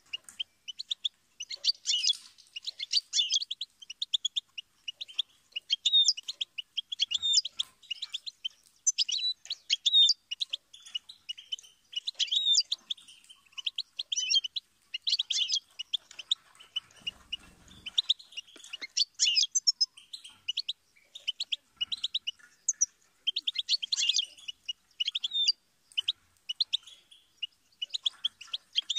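European goldfinch singing: a long run of rapid twittering chirps and trills, in phrases broken by short pauses.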